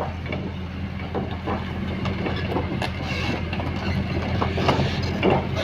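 Heavy diesel engine running steadily with a low hum, under frequent irregular metallic clanks and rattles.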